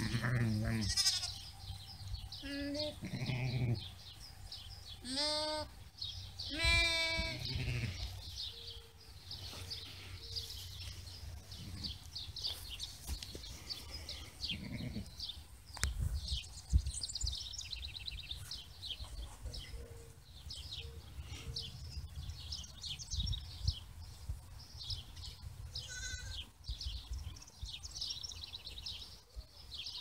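Corriedale-Finnsheep crossbred sheep bleating several times in the first eight seconds and once more near the end, with birds chirping in the background.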